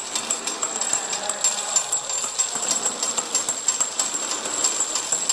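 Automatic ampoule labeling machine running: glass ampoules click and rattle steadily as they turn on the roller conveyor, over a constant high-pitched whine.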